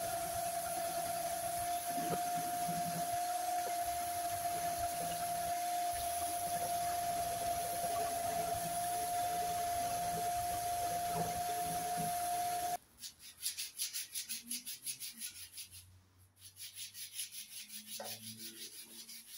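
Electric random orbital sander running on wood with a steady whine. It cuts off suddenly about two-thirds of the way through. Then comes quicker hand-sanding: sandpaper rubbed back and forth on a small wooden spindle, about four strokes a second.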